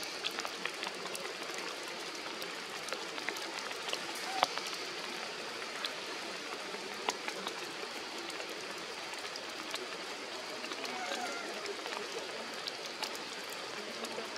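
Steady rain falling on forest foliage: a constant hiss with scattered sharp drop ticks.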